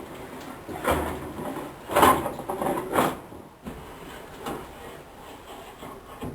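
Irregular knocks and scraping, loudest about one, two and three seconds in, then weaker.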